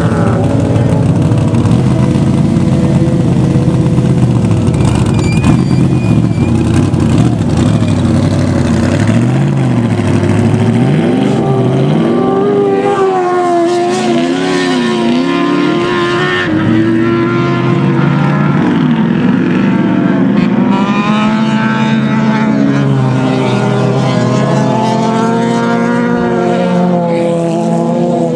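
Several vehicle engines racing on an ice track, their pitch rising and falling again and again as they rev up and ease off through the turns, with more than one engine heard at once. A heavy low rumble runs under them for the first ten seconds or so.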